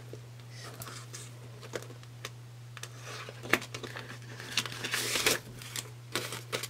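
A clear plastic cash envelope crinkling and paper bills rustling as a ten-dollar bill is pulled out of it, with scattered small clicks; the crinkling is busiest from about three and a half to five and a half seconds in.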